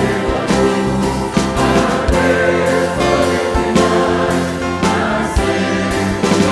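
Mixed choir singing a Christmas hymn in Portuguese, with soloists on microphones and instrumental accompaniment.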